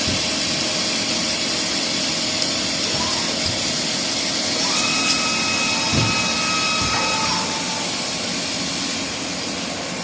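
Fermat WFC 10 CNC horizontal boring mill running during a boring operation, with steady machine noise. A thin high whine rises over it for a couple of seconds in the middle, with a couple of short knocks.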